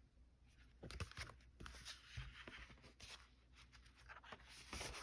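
Faint rustling and soft taps of paper as a coloring book is handled and its pages are turned.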